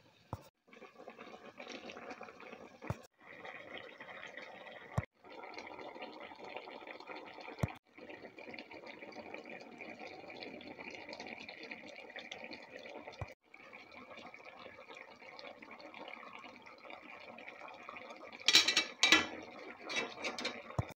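A pot of plantain and vegetable curry boiling hard, a steady bubbling hiss that breaks off briefly a few times. Near the end come a few louder clattering sounds.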